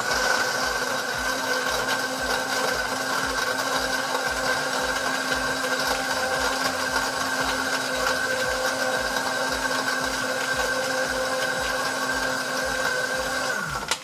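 Britânia BLQ1280P 1150-watt blender running on its pulse (ice) setting, crushing ice in pineapple juice: a steady, even motor sound that starts abruptly and cuts off near the end with a brief falling whine as the blades spin down.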